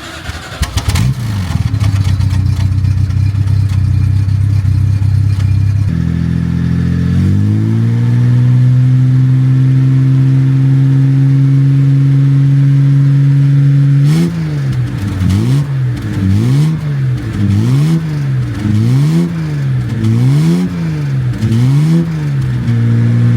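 Car engine starting, then idling and settling to a higher, steady speed. From about two-thirds of the way in, it is revved up and down in regular blips, about one every second and a half.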